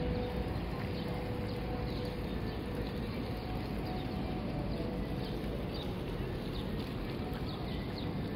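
City park ambience: a steady low rumble of traffic with frequent short, high, falling chirps from small birds.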